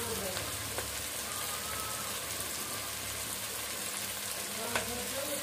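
Chopped onion and tomato frying in oil in an aluminium kadai for a tadka: a steady sizzle, with a light click near the end.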